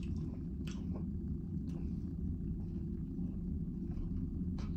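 A steady low rumbling hum in the cabin, with a few faint wet clicks and smacks of a person chewing a chicken sandwich.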